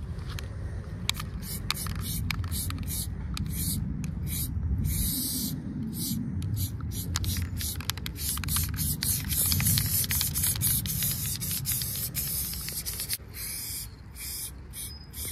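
Aerosol spray paint can hissing in many short bursts and a few longer sprays, with a low rumble underneath.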